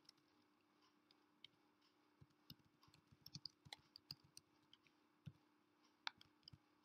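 Faint typing on a computer keyboard: a quick run of key clicks in the middle, with a few single clicks at the start and near the end.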